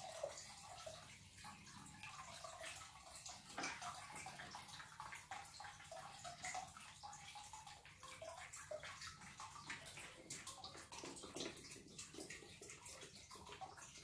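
White vinegar poured from a plastic bottle into a stainless steel bowl of water: a faint, steady pouring and trickling of liquid.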